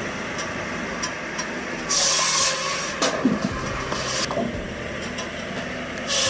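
Firewood processing machinery running: a steady mechanical noise with scattered light knocks, and a louder rushing hiss about two seconds in and again near the end.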